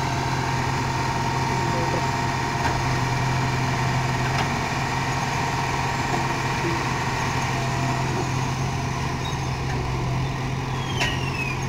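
Diesel engine of a JCB 3DX backhoe loader running steadily while it works its bucket, with a short falling squeal near the end.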